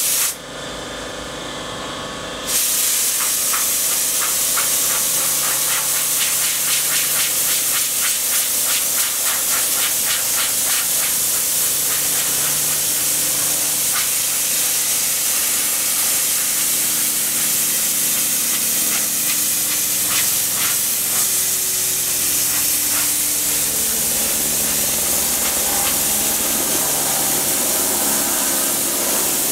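Compressed-air blower at about 80 PSI hissing steadily as it blows sanding dust off a wooden table top. It drops off briefly about half a second in and comes back at full strength about two seconds later.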